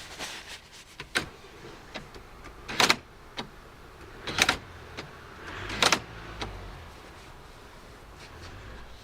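Land Rover Discovery 2 rear door lock's central-locking actuator being tried out: three short motorised clunks about a second and a half apart, with lighter clicks between them.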